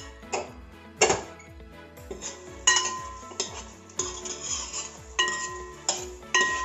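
Steel ladle clinking and scraping against an aluminium uruli while banana pieces are stirred in thick jaggery syrup: a string of sharp, uneven clinks, some leaving a short metallic ring, over background music.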